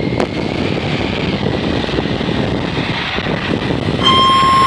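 Wind roar and buffeting on a motorcycle-mounted action camera's microphone while riding at speed. About four seconds in, a steady high beep starts and lasts about a second.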